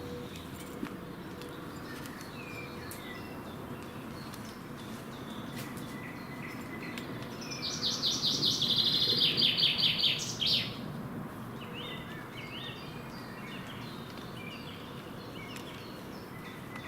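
Songbirds singing, with one bird giving a loud, fast trilled song phrase of about three seconds about halfway through. Fainter short chirps come before and after it.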